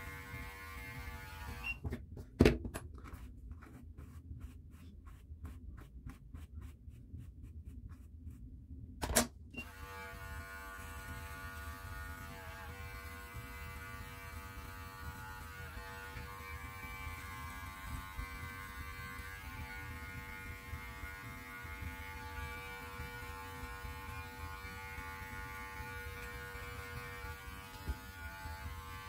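Electric beard clippers running with a steady hum. About two seconds in a sharp click cuts the motor off, and around nine seconds another click starts it running again.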